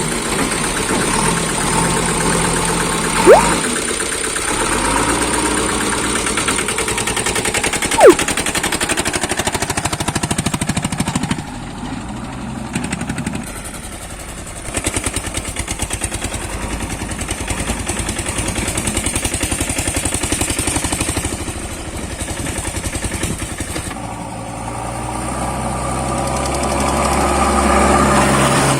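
Diesel engine of heavy machinery running steadily, with two short sharp chirps in the first third and the engine growing louder and deeper near the end.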